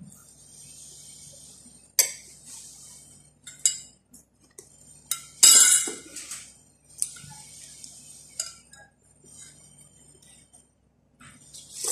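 Metal cutlery clinking and scraping on a ceramic plate: about half a dozen separate clinks, the loudest a longer scrape about five and a half seconds in.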